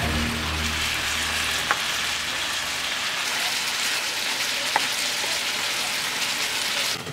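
Diced, paprika-seasoned chicken sizzling in oil in a hot skillet while being stirred with a wooden spoon, a steady frying hiss with two light clicks. The sizzle cuts off suddenly at the very end.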